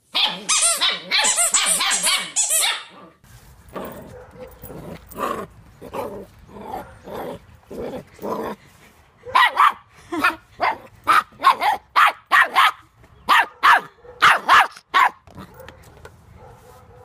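Puppies barking in high, yappy voices: a rapid run of yaps in the first three seconds, then a puppy's barks that start faint and become loud, sharp barks about two a second.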